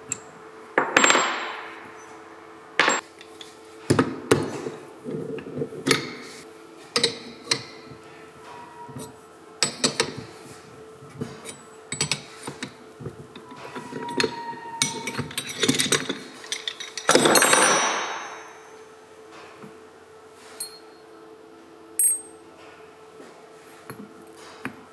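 Irregular metal knocks, taps and clinks of hand tools on car alternator parts, with a couple of longer louder swells of scraping noise and a faint steady hum underneath.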